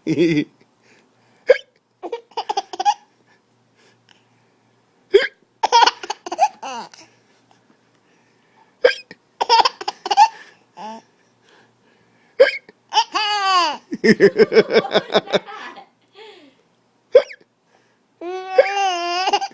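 A man hiccuping, about six sharp hiccups a few seconds apart, each answered by a baby's laughter. Later the laughter turns into a long run of quick, pulsing laughs, and near the end a high squealing laugh.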